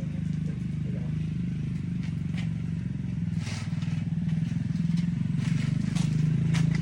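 A small engine running steadily with a low, rapidly pulsing drone, and several sharp snaps or clicks over it in the second half.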